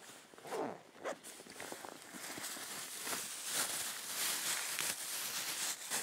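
A camera backpack being unzipped and rummaged through: a zip near the start, then steady rustling of fabric and gear being shifted inside the pack.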